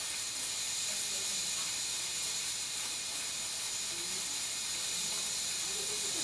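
Steady hiss of a handheld gas torch flame playing on a brass trumpet valve slide, heating it to red to anneal the metal before its dents are removed.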